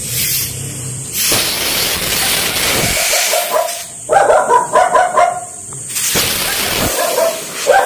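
Pressurised gas hissing out of an air-conditioner's refrigerant piping in two bursts as the lines are flushed. In between, about four seconds in, a dog barks several times.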